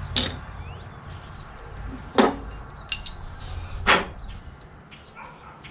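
Metal tools and parts clinking and knocking: four sharp strikes over about four seconds, one of them a quick double. Birds chirp faintly in the background.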